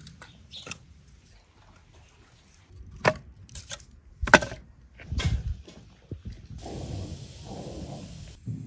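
Split firewood pieces knocking and clacking against each other as they are stacked into a fire pit, a few sharp wooden knocks with the loudest about four seconds in. From about six and a half seconds, a steady rush of a wood fire burning.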